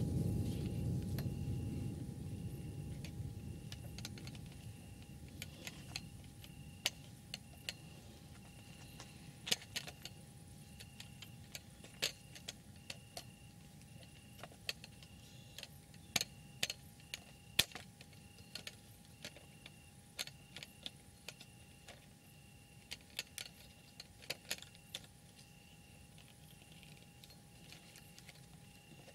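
A thunder rumble dies away over the first few seconds. It is followed by scattered sharp taps of rain drops falling close by, coming irregularly. A faint high chirp repeats evenly in the background.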